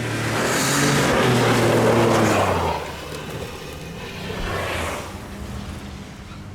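Snowmobile engine running close by, loudest over the first two to three seconds with its pitch dipping slightly, then settling into a quieter, steady drone.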